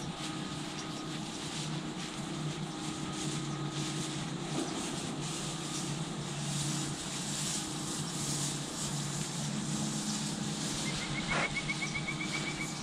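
Low, steady drone of a distant engine over a steady hiss, with a short, rapid, high-pitched trill about eleven seconds in.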